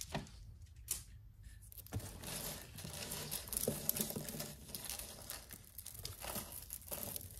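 Tangled beaded costume jewelry being handled and pulled apart: a couple of sharp clicks, then, from about two seconds in, a steady crackling rustle with small clicks of beads and chain.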